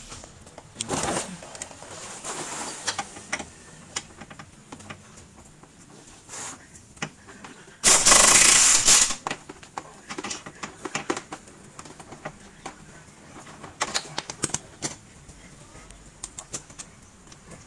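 Pneumatic impact wrench running in bursts on the steering rack's bolts: short bursts about one and two seconds in, and a longer, louder one of about a second about eight seconds in. Scattered clinks of tools and metal come between the bursts.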